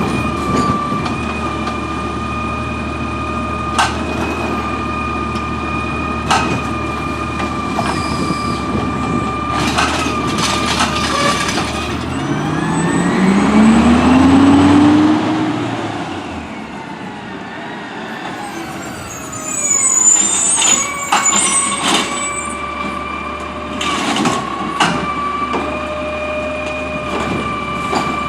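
Autocar ACX garbage truck with a Heil Rapid Rail automated side-loader, running with the steady high-pitched whine it makes at idle. About halfway through, the engine revs up, rising in pitch and getting louder, then settles back, and a number of sharp knocks and clanks come and go.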